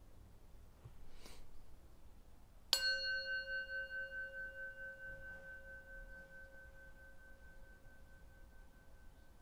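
A brass Tibetan singing bowl struck once, about two and a half seconds in, after a faint rustle. It rings with several clear tones that pulse in a slow waver as they fade away over several seconds.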